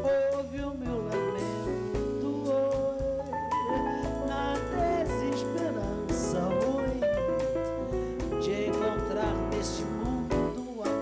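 Live band music with a woman singing over drum kit, electric bass and keyboard.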